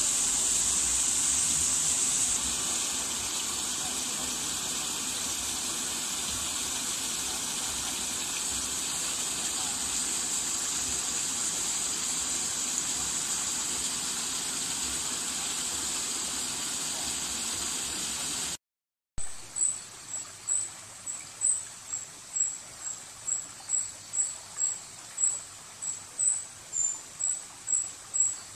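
Steady rushing of shallow floodwater flowing over a road, with a high, constant insect-like hiss above it. After a brief cut, the rush gives way to a quieter background with a high chirp repeating about twice a second.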